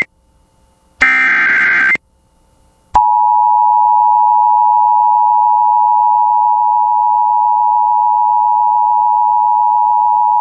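Emergency Alert System tones: a one-second screech of the SAME digital header's data burst about a second in, then about three seconds in the steady two-tone EAS attention signal (853 and 960 Hz together) starts and holds.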